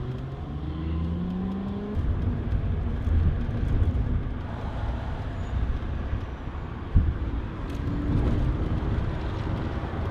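Nissan 370Z's V6 engine running and accelerating, its pitch climbing, with a louder rumble from about two seconds in and a single sharp knock about seven seconds in.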